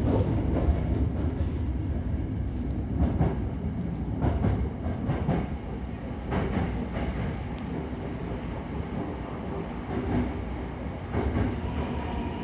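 Hankyu Takarazuka Line electric train running: a steady low rumble with irregular clicks of the wheels over the rails. Near the end a falling whine sets in as the train slows for its stop.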